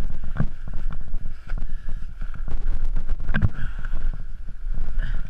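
Wind buffeting an action camera's microphone: a steady low rumble, with scattered knocks and rustles from handling and the wingsuit's fabric.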